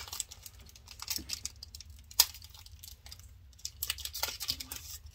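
Foil Pokémon booster-pack wrapper crinkling and tearing as it is worked open by hand: scattered small crackles, with one sharp crack about two seconds in.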